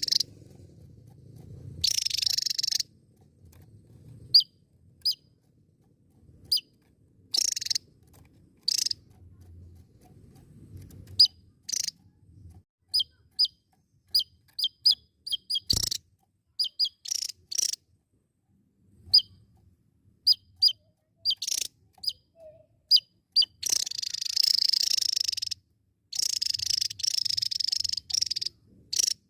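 Javan tesia calling: a run of short, sharp, high chirps, singly and in quick groups, giving way near the end to dense, buzzy trilling song phrases. A single sharp click about halfway through.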